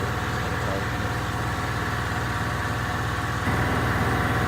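A steady engine or motor running with a regular low pulsing, getting suddenly louder about three and a half seconds in.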